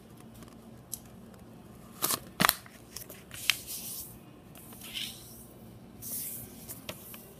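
A sheet of double-sided origami paper being folded diagonally in half and creased with the fingers: a few sharp crackles as the paper is handled, the loudest about two seconds in, then short rubbing swipes as the fold is pressed flat.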